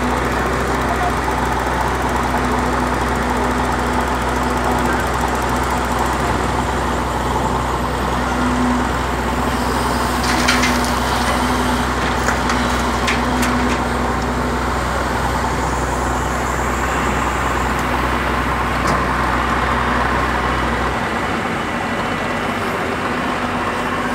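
Diesel engine of a Doosan crawler excavator running steadily under load while it digs earth and loads a dump truck. About halfway through, a short run of clattering hits as the bucket dumps earth into the steel truck bed. A low hum underneath cuts off near the end.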